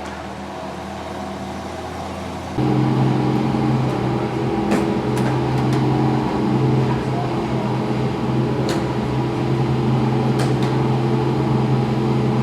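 Ford GT GT1 race car's V8 running at a steady, unchanging engine speed; about two and a half seconds in it steps up to a louder, fuller note and holds it without revving up or down.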